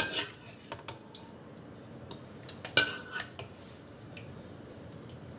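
Stainless steel ladle clinking and scraping against a wok while serving curry: several sharp clinks, the loudest at the start and about three seconds in, that one ringing briefly.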